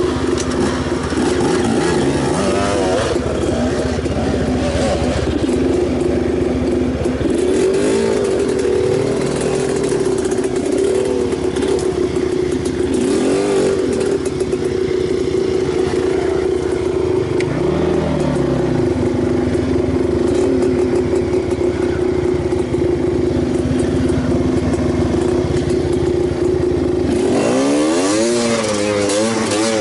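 Enduro motorcycle engine running at a steady speed, with a few short rises and falls in revs. About two seconds before the end the throttle is worked on and off, and the revs swing up and down repeatedly.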